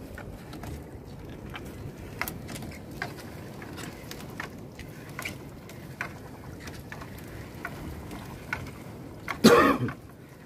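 Sinking fishing net being hauled by hand into a small boat: scattered drips and small knocks over a steady wash of background noise, with one loud sudden noise about nine and a half seconds in.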